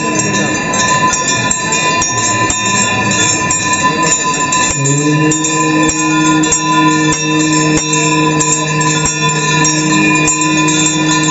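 Temple bells ringing continuously over devotional music, with many rapid metallic strikes. About halfway through, a low steady held tone joins in.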